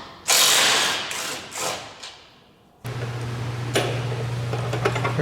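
A few loud rushing, clattering bursts that die away, then about three seconds in a power tool starts running steadily on a bolt: a constant motor hum with fast ticking.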